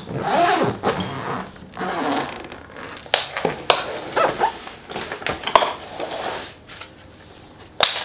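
Hard-shell suitcase being handled and unzipped: rasping zipper runs with several sharp clicks and knocks, the loudest click near the end. A brief pitched, voice-like sound comes right at the start.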